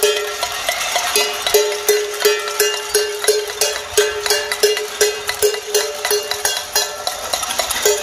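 Cacerolazo protest: many pots being beaten with spoons at once, a dense clatter of metallic strikes. One nearer pot rings out at a steady pace of about three strikes a second.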